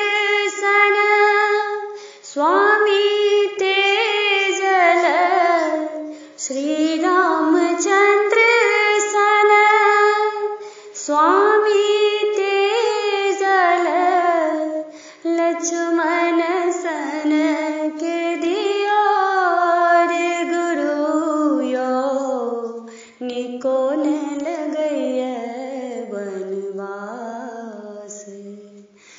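A woman singing a Maithili parati, a devotional morning song, in long, held, gliding phrases with short breaths between them. Near the end the last phrase sinks lower and fades away.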